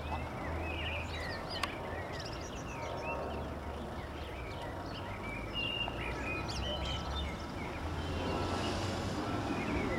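Mitsubishi Colt 1.3 four-cylinder petrol engine idling, a low steady hum at the tailpipe. Small birds chirp repeatedly over it.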